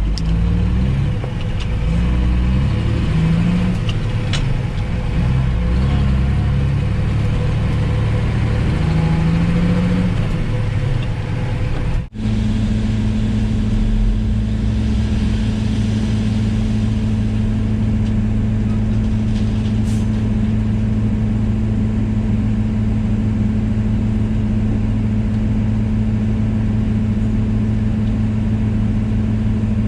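Ford L9000 dump truck's diesel engine running while driving, its pitch shifting up and down through the gears; after a sudden break about twelve seconds in, it settles into a steady drone at cruising speed.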